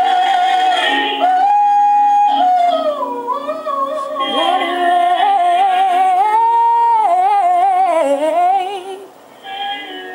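Gospel singing: a high solo voice holds long notes with vibrato and sings runs over low held accompaniment chords. The voice drops away briefly near the end.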